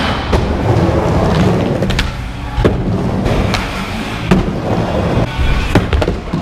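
Skateboard wheels rolling fast over a concrete bowl, a steady low rumble, broken by several sharp clacks of the board and trucks striking the concrete.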